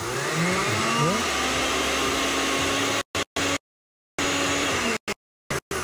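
Countertop blender running with a steady whir, labouring on a thick mix of precooked broccoli and sour cream that has too little liquid. The sound drops out completely several times in the second half.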